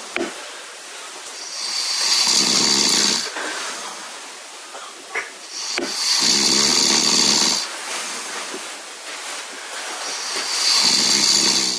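A man snoring in his sleep: three long, loud snores about four to five seconds apart, with softer breathing between them.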